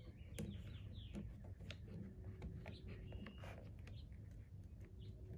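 Faint handling noise: light clicks and rustling of plastic washer-fluid tubing being fitted along a windshield wiper arm, with birds chirping faintly now and then.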